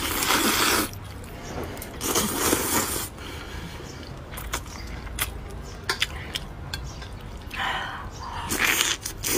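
Spicy fire-chicken instant noodles slurped up with chopsticks in three long, wet sucking draws, with short smacking clicks of chewing in between.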